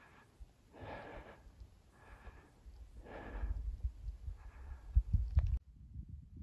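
A person breathing hard in the thin air of a high mountain pass: five quick, even breaths about a second apart. A low wind rumble on the microphone builds in the second half, with a knock just before the sound cuts off abruptly near the end.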